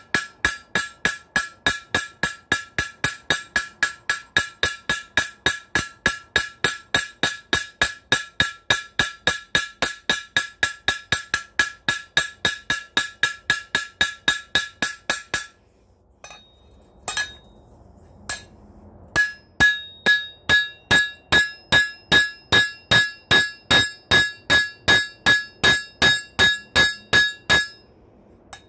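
Hammer peening the copper rivets that join a mild-steel spoon to a rebar handle on the anvil. The blows come fast and even, about four a second, each ringing. The hammering stops for about three seconds midway, with a couple of single knocks, then starts again.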